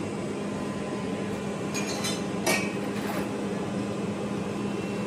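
A few light metallic clinks about two seconds in, as steel exhaust tips and fittings are handled at a workbench, over a steady low workshop hum.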